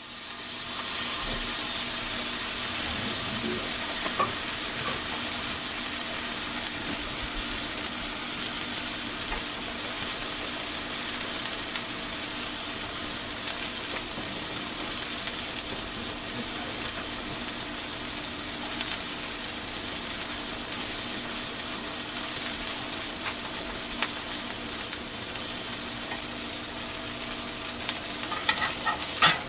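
Coarse-ground brisket beef patty sizzling in a hot cast-iron skillet. The sizzle comes up about a second in and holds steady, with a few small pops near the end.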